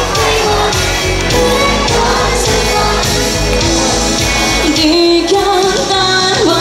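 Live pop song: a female singer's voice over band music with a steady beat.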